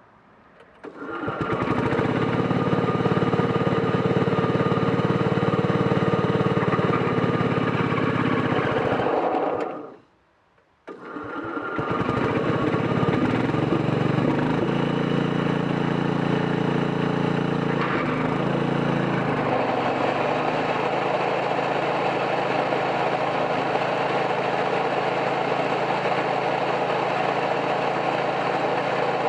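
Bolens 1050 lawn tractor engine starting about a second in and running steadily, then stopping suddenly after about nine seconds. It starts again a second later and keeps running; a few seconds past the middle its tone shifts and the running sound becomes fuller and noisier.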